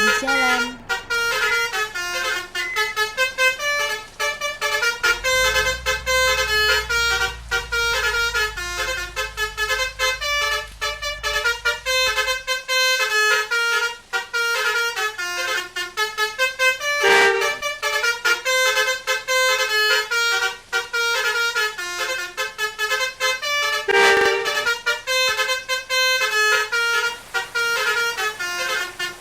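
Bus 'telolet' basuri musical horns playing a tune of sustained notes that step up and down in pitch without a break. A low rumble sits under it from about five to twelve seconds in, and there are two short louder moments around seventeen and twenty-four seconds.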